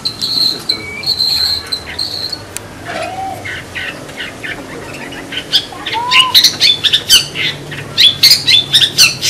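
Long-tailed shrike (cendet) calling. It opens with a few high, whistled notes, then from about halfway launches into a fast run of short, harsh, scratchy chattering notes that grows louder toward the end.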